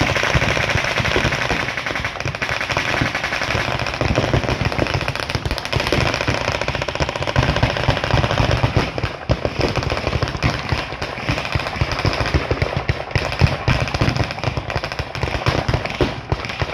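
Machine-gun and rifle fire loaded with blanks, many guns going at once in rapid, overlapping bursts with hardly a pause.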